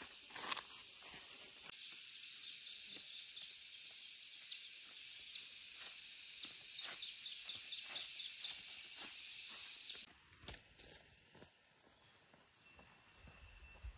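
Outdoor forest ambience: a steady high insect drone with quick runs of short falling bird chirps over it, and scattered clicks and snaps. The drone cuts off suddenly about ten seconds in.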